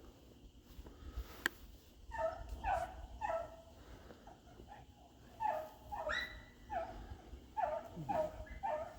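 Rabbit-hunting dogs barking out in the field as they work a cottontail's trail. The dogs give short, repeated barks in bursts, starting about two seconds in.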